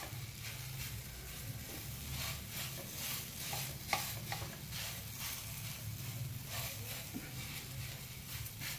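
Wooden spatula stirring and scraping grated radish around a non-stick frying pan, in short irregular strokes with a few light knocks on the pan, over a faint sizzle of the radish frying in a little ghee as its water is cooked off.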